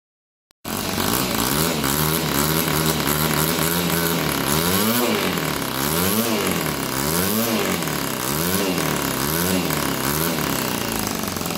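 Homemade 6.5 cc single-cylinder four-stroke glow model engine with a single rotary valve, running on methanol fuel. It runs steadily at first, then from about four seconds in it is revved up and down about once a second.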